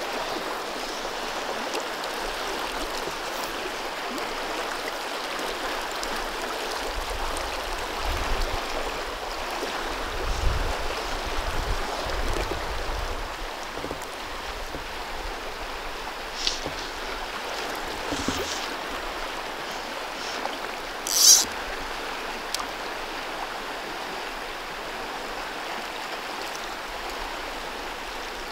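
Klamath River rushing over a riffle: a steady wash of flowing water. A stretch of low rumble comes about a third of the way in, and a brief sharp hiss about three-quarters of the way through is the loudest moment.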